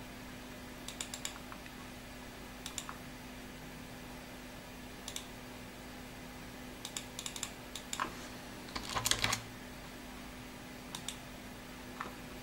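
Computer mouse clicks and keyboard keystrokes: scattered single and paired clicks, with a quick run of keystrokes about nine seconds in, over a steady low hum.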